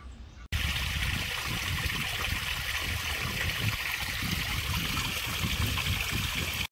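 Small stream of water trickling and gurgling steadily over a rocky bed among grass, starting abruptly about half a second in.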